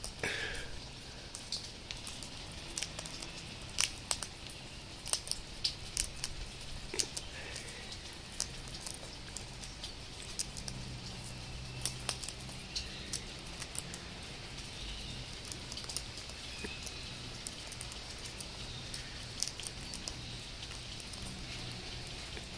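Sulphur-crested cockatoos cracking sunflower seeds in their beaks: an irregular run of sharp cracks and clicks as the husks split.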